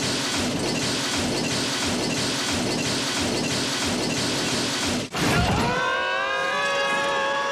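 A long crash of heavy objects falling, smashing and breaking, going on for about five seconds. After a brief gap the crashing resumes and a man's drawn-out yell rises over it and holds.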